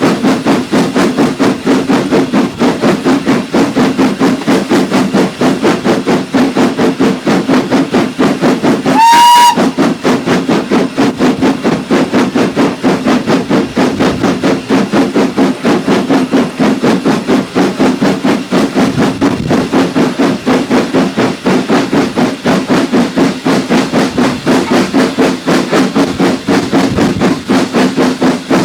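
Steam locomotive working hard, with a fast, even rhythm of exhaust beats, about four or five a second. One short whistle blast sounds about nine seconds in, the loudest moment.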